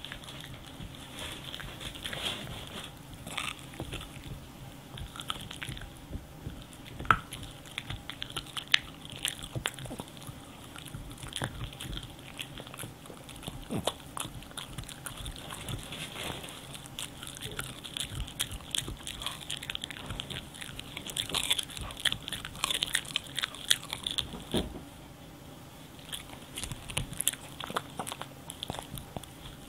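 French bulldog gnawing a dried cow stick chew: irregular crunching and clicking of teeth on the hard stick, with two sharper cracks about seven and nine seconds in and a brief lull near the end.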